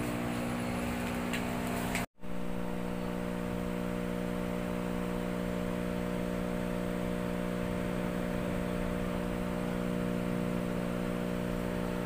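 Steady electrical hum made of several even tones, with hiss over it, broken by a moment of silence about two seconds in.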